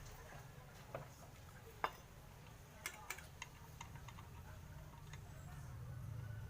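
A few light, irregular clicks and taps over a low steady hum, the sharpest a little under two seconds in.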